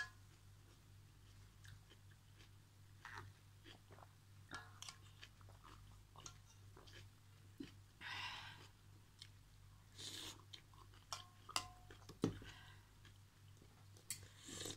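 Close-up eating of noodle soup: soft chewing with a few short sips or slurps from a spoon, and scattered sharp clicks of a spoon and fork against the metal pot, one louder knock a little after twelve seconds. A low steady hum sits underneath.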